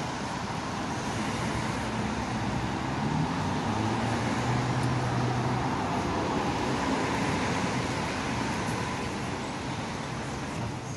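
B2-class articulated tram arriving at a stop, rolling in on its rails and slowing, mixed with passing road traffic. It grows louder as it draws alongside, then eases near the end.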